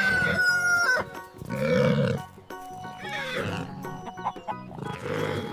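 Barnyard animal calls over cheerful background music: a rooster's crow ends about a second in, followed by several shorter farm-animal calls.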